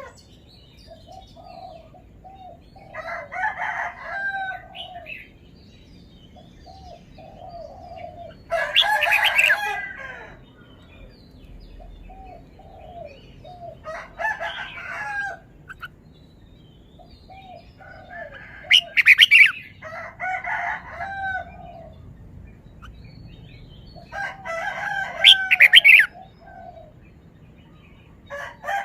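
Red-whiskered bulbul singing: short loud song phrases repeated about every five seconds, with soft chirps in between.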